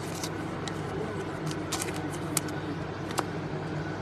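Light sharp clicks and rustles of trading cards and card packs being handled, scattered over a steady background hum.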